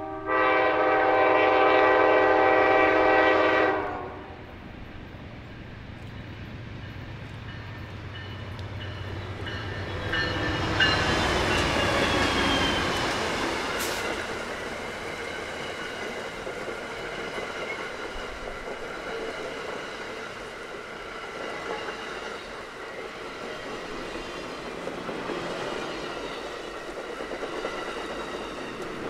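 Amtrak passenger train pulled by two GE Genesis diesel locomotives: a long multi-note horn blast that ends about four seconds in, then the locomotives' engines swell as they pass, followed by the passenger cars rolling by with wheel clatter and faint squeals.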